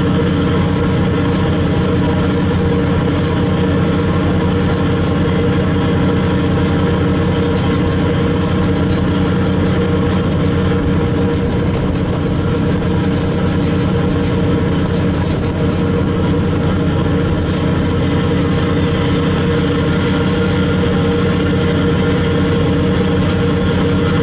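Ferry's engine running steadily while under way: an even, unchanging drone made of several steady tones.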